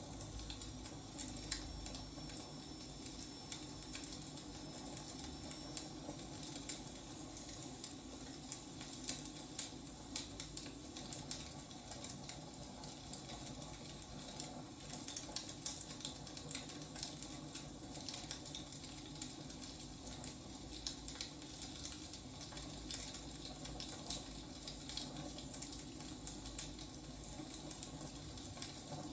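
Wood fire burning: irregular crackles and small pops from the burning logs over a steady low hiss.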